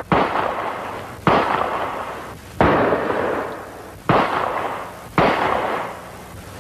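A revolver fired five times in slow succession at a target, about a shot every second and a half. Each shot is a sharp crack followed by an echo that dies away.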